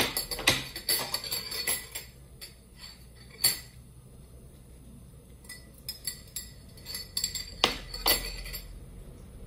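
Kitchen clatter: dishes and cooking utensils clinking and knocking in short irregular runs, with sharper knocks about half a second in, about three and a half seconds in, and near the end.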